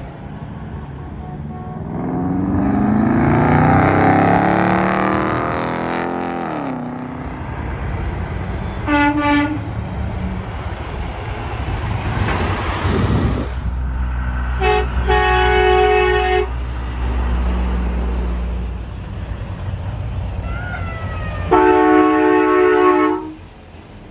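Trucks going by with horn blasts. A short honk comes about nine seconds in, two honks around fifteen seconds, and a longer chord-like blast near the end. Between them come the rising and falling sweep of vehicles passing and a low engine rumble.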